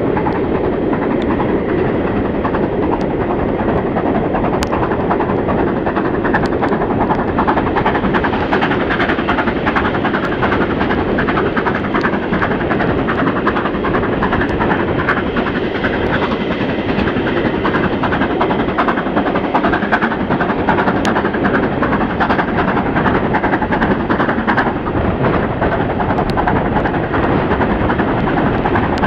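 BR Standard Britannia Pacific steam locomotive 70013 Oliver Cromwell working hard at speed, heard from an open carriage window: a dense, steady roar of exhaust, wheels and rushing air. Scattered sharp little clicks are char from the smokebox hitting the microphone.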